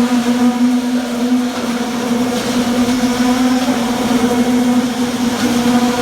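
Engine of concrete-pouring machinery running steadily at constant speed, a continuous pitched hum that holds one pitch throughout.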